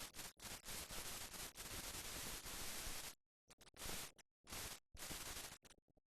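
Hiss-like static with no other sound, switching on and off abruptly: one long stretch lasting about three seconds, then shorter bursts.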